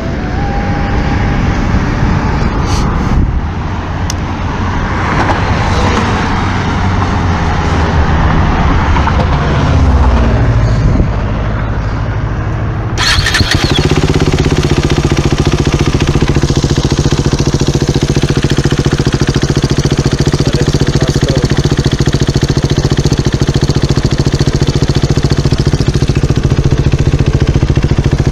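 KTM 390 Duke single-cylinder engine exhausting through a LeoVince slip-on silencer. It runs unevenly, with revs rising and falling, for the first half. About 13 seconds in the sound changes abruptly and the engine settles into a steady idle.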